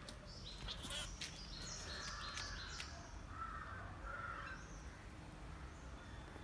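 Birds calling: a quick run of short, high chirping notes, then two longer, harsher and lower calls.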